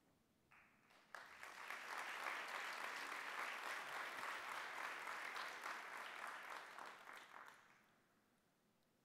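Audience applauding: clapping starts about a second in, holds steady, then fades out near the end.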